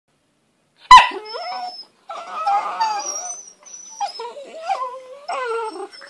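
Whippet puppies vocalizing as they play-fight and mouth each other: a sudden loud yelp about a second in, then a rough grumbling stretch and a run of wavering whines whose pitch slides up and down.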